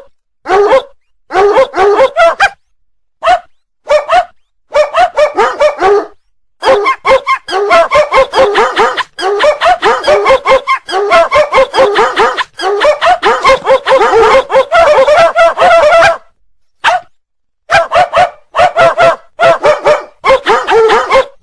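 A dog-bark ringtone: a dog barking over and over in quick runs of several barks a second, with short breaks between the runs.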